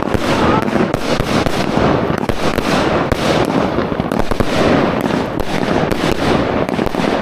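Chinese New Year fireworks going off in a dense, unbroken barrage of bangs and crackles.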